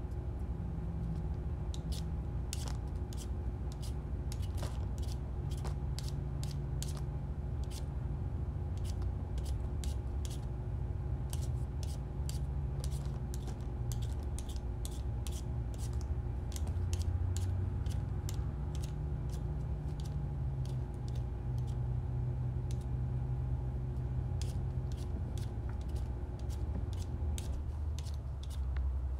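Hand vegetable peeler scraping the skin off a potato in quick, irregular short strokes, over a steady low hum that stops shortly before the end.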